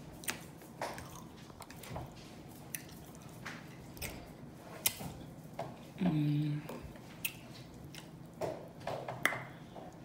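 A person chewing food with wet lip smacks and mouth clicks, in irregular bursts. About six seconds in comes a short hum of the voice.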